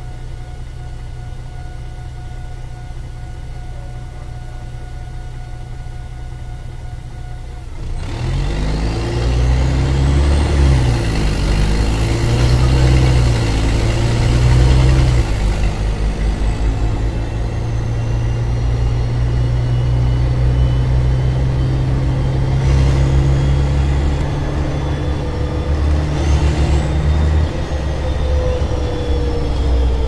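Mercedes-Benz O-500MA articulated bus's diesel engine, with a hole in its exhaust, idling steadily. About eight seconds in it gets much louder and revs up, with a high whine that rises and then falls away. It runs on at higher revs and starts winding down near the end.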